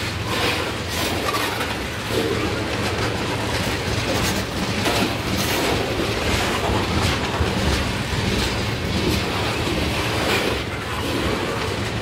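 Freight train tank cars rolling past close by: a steady rumble of steel wheels on rail, with repeated clickety-clack as the wheels cross rail joints.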